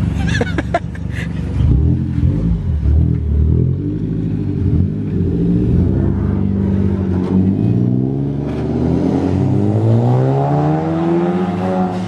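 Mazda3 hatchback's engine running as the car pulls away, then accelerating with its pitch rising steadily through the last few seconds.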